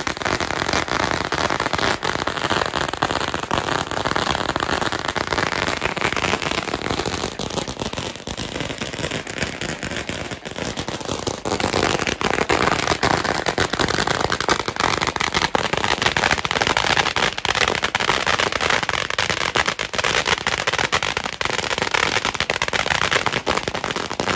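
A long string of firecrackers going off in a continuous rapid crackle of bangs; it thins a little about a third of the way through, then picks up again.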